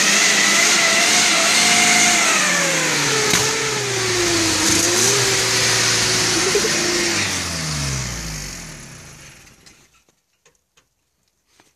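Small four-wheel-drive car's engine running at high revs, then the revs fall away over several seconds until the engine stops about ten seconds in.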